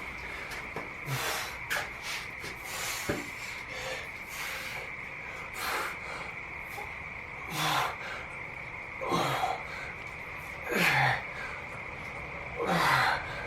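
A man's hard, forceful breathing under exertion, one sharp exhale about every one and a half to two seconds, the breaths growing louder through the second half. A steady high-pitched tone runs underneath.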